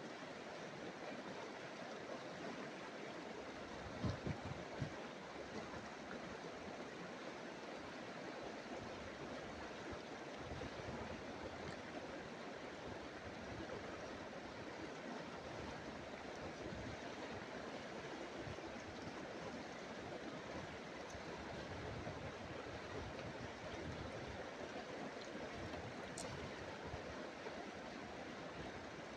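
Shallow river current rushing over choppy riffles, a steady even noise, with a few brief low bumps about four seconds in.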